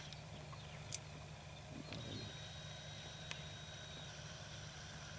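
Faint, quiet bush ambience: a steady low hum under a thin, steady high tone, with a few small sharp clicks, one right at the start and others about one and three seconds in.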